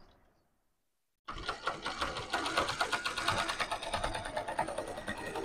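A zigzag sewing machine gives a short knock, then starts about a second in and runs steadily, its needle stitching rapidly. It is sewing a test seam after the bobbin case's tension screw was tightened to stop looping stitches on top.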